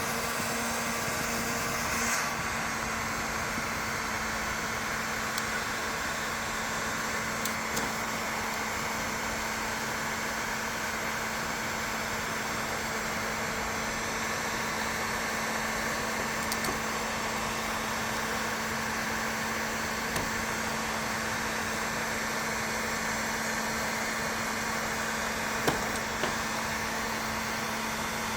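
Electric heat gun running steadily, its fan blowing with a constant low hum. A couple of small sharp clicks come near the end.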